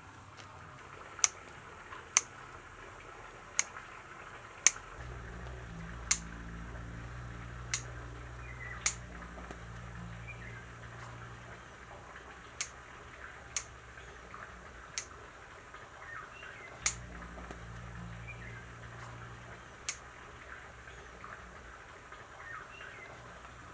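About a dozen sharp clicks at irregular gaps of one to three seconds. Under them are faint high chirps and a low hum, which comes in about five seconds in, drops out near the middle and returns briefly later.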